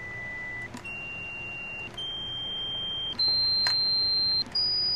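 A small speaker driven by a Tenma audio generator's sync (TTL) output, giving a steady test tone that steps up in pitch about once a second as the frequency dial is clicked round, five pitches in all. There are brief clicks at some of the steps.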